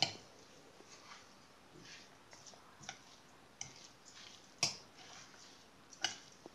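Hand mixing a wet rice, tomato and herb stuffing in a glass bowl: faint, scattered clicks and squelches, with a few sharper taps against the glass right at the start, about two-thirds of the way in and near the end.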